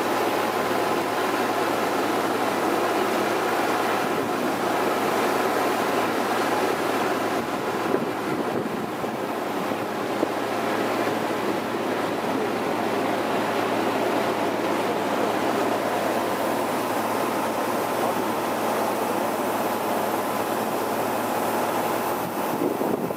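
River cruise boat's engine running steadily under way, with water rushing in the wake and wind on the microphone.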